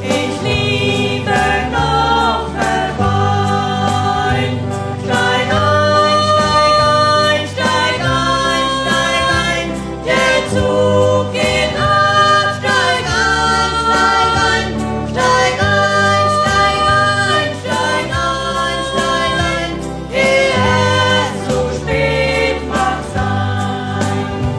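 Music: a German song sung by two singers.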